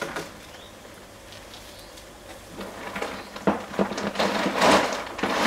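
Heavy-duty plastic storage tubs and filter matting being handled: a run of clattering knocks and scrapes of hard plastic. It starts about halfway through and grows louder near the end.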